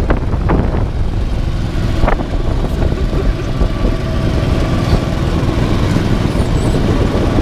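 Go-kart engine running steadily as the kart drives around the track, over a dense low rumble, with one sharp knock about two seconds in.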